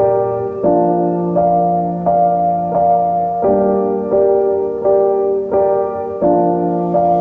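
Background music: soft piano or electric-piano chords played at an even, slow pulse, a new chord about every two-thirds of a second.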